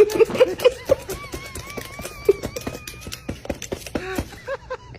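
A parrot making many sharp clicks and short chirping calls, with a wavering whistle for about two seconds starting a second in.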